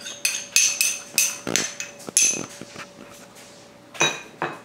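Metal spoon clinking against a small ceramic bowl, knocking chopped garlic out into a mixing bowl: a quick run of bright taps, about three a second, then a few sparser ones and two more near the end.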